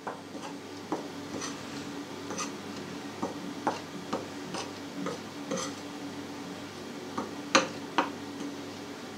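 Metal spoon stirring salt into sifted flour in a ceramic mixing bowl: irregular light clinks and scrapes of the spoon against the bowl, with two sharper clinks late on, over a steady low hum.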